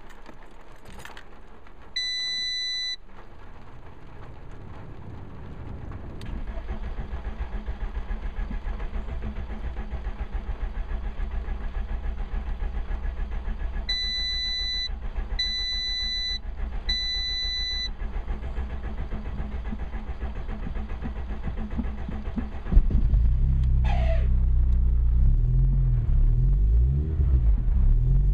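Seat Ibiza 1.6 petrol engine being cranked on the starter for a long stretch, a steady rhythmic turning-over without catching, as the car refuses to start. An electronic beep sounds once early on and three times midway. About 23 seconds in the engine suddenly fires and runs much louder, revving unevenly.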